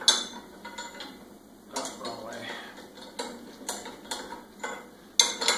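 Steel parts of a lawn sweeper clinking and knocking as a handle tube and adjustment pin are fitted together by hand: a handful of separate light metal taps, the loudest near the end.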